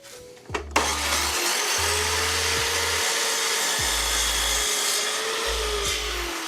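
Power saw cutting through a new stair handrail: it starts about three-quarters of a second in and runs steadily with a motor whine that sinks in pitch near the end.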